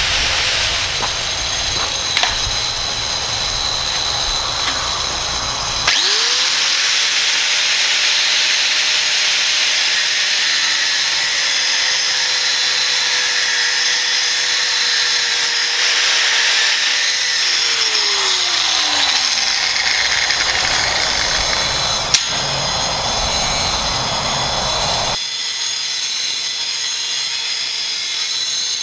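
Angle grinder with a diamond cut-off wheel cutting through metal, a loud, continuous, hissing grind over the steady whine of the motor. The motor's pitch sags briefly under load; near the end the cutting noise drops away and the grinder spins on freely.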